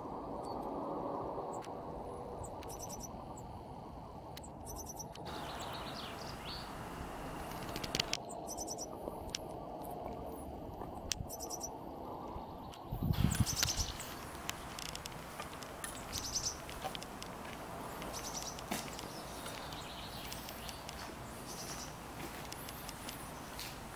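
Small birds chirping repeatedly in short high calls over steady outdoor background noise, with one brief low rumble about halfway through.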